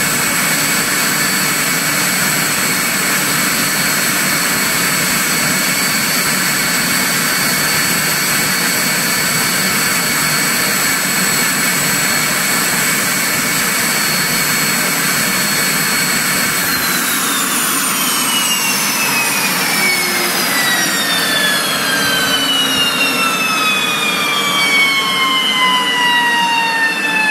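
Turbomeca Turmo C6 turboshaft engine running loud and steady, a high turbine whine over a rushing noise. About two-thirds of the way through, the whine starts falling steadily in pitch as the engine spools down.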